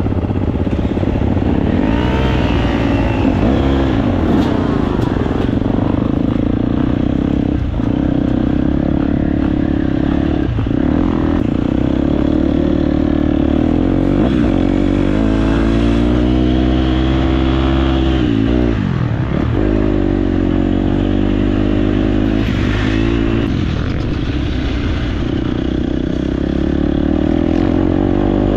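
Dirt bike engine being ridden hard, its revs falling and climbing again and again through throttle changes and shifts, with a deep drop and recovery about nineteen seconds in.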